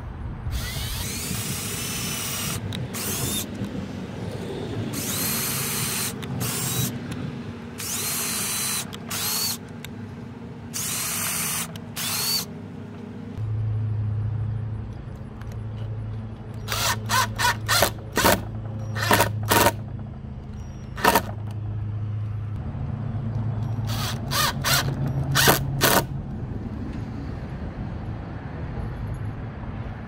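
Cordless drill boring pilot holes into a wooden gate post in several short bursts, its motor pitch rising and falling, over roughly the first twelve seconds. Then a cordless impact driver drives screws into the wood, running with a low hum and sharp rapid clicks in two spells in the second half.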